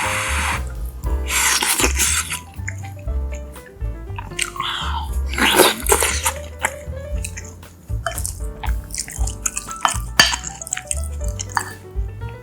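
Background music with a steady bass line, over a few short, noisy eating sounds from a person eating bibimbap and stew.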